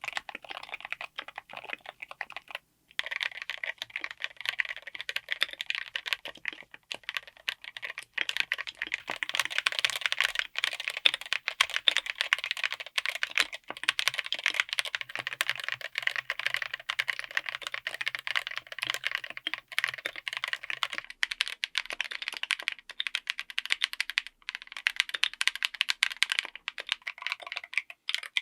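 Rapid, continuous typing on a full mechanical keyboard fitted with linear switches, many keystrokes a second. There is a short break about three seconds in before the typing resumes.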